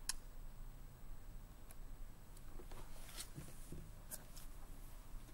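Faint, scattered clicks and soft scratching or rustling in a quiet room.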